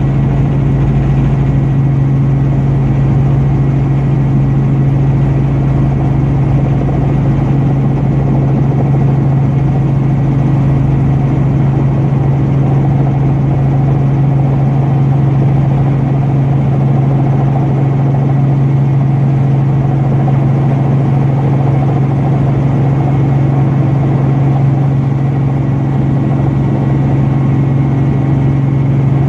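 Robinson R44 Raven I helicopter running steadily, a loud, unchanging drone with a strong low hum.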